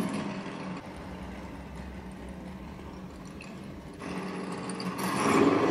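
RC buggy's small electric motor whirring as the buggy rolls down the ramps out of a toy container truck. It is quiet at first, then grows louder about four seconds in as the buggy speeds up and drives off.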